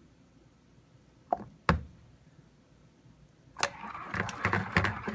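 Two sharp knocks a moment apart, then from about three and a half seconds in a busy run of clicks and scraping: utensils tapping and scraping against a container of soap batter while it is worked by hand.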